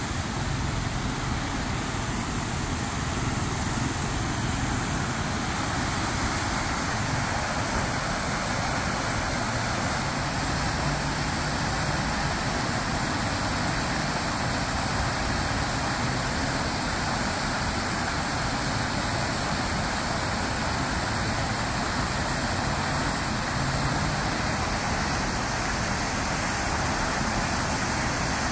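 Park fountain's tall central jet and ring of smaller jets splashing down into the basin: a steady rushing of falling water.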